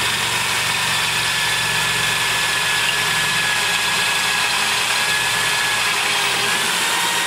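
Drill running steadily, turning a PC seal cutter that trims the top of a valve guide on a cast-iron Ford FE 390 cylinder head, with a faint high whine that wavers slightly in pitch.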